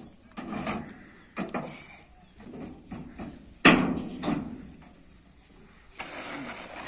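Sheet-metal clanks and knocks from the Shakti Farm thresher's hinged chute panel as it is swung and handled, with the machine not running; the loudest bang comes a little past the middle. Near the end, the rustle of a plastic tarpaulin being spread out.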